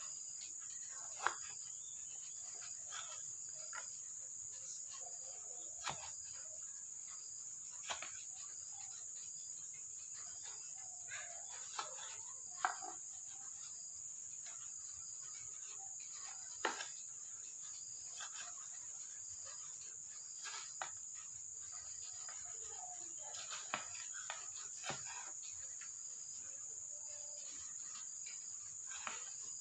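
A kitchen knife slicing tomatoes on a wooden cutting board, giving a dozen or so irregular sharp taps as the blade meets the board. Under the taps runs a steady high-pitched insect drone.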